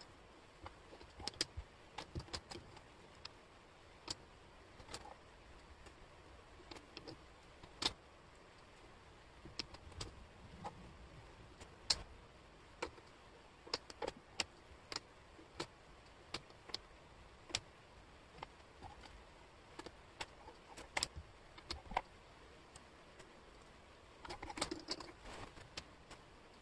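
Small wooden jigsaw puzzle pieces clicking against each other and the tabletop as hands pick up, sort and fit them: irregular light taps, with a busier stretch of clatter near the end.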